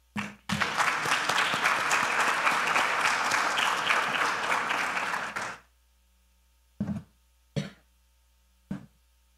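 Audience applauding, a dense patter of clapping that stops about five and a half seconds in.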